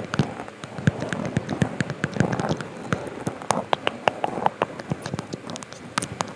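Irregular close-up clicks and taps over a light crackle, as small objects are handled at the microphone.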